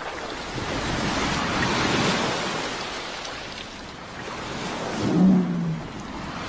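Ocean waves surging against a rocky shore: one wave swells and recedes, then a second comes in about five seconds in. A brief low tone is heard as the second wave comes in.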